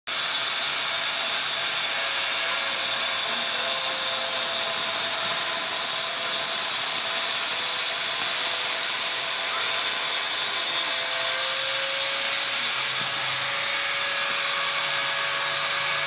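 Handheld electric angle grinder running steadily, its disc worked over the surface of a fiberglass casting; a steady whine that wavers slightly in pitch.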